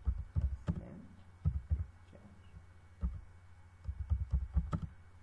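Typing on a computer keyboard: irregular runs of keystroke taps with short pauses between them, over a low steady hum.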